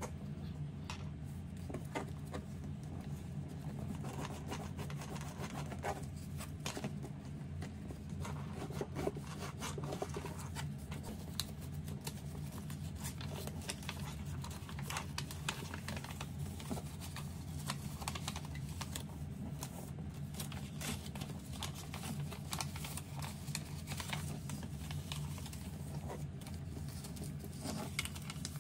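Origami paper being folded and creased by hand: irregular small crackles, taps and rustles of paper, over a steady low hum.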